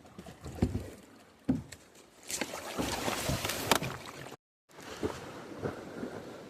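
A kayak being handled: scattered knocks and scrapes on the hull, with a louder rush of scraping and splashing noise about two seconds in that cuts off abruptly.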